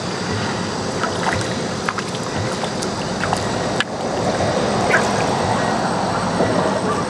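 Small splashes and water movement from a hooked crucian carp thrashing at the surface, over a steady background hiss, a little louder from about four seconds in.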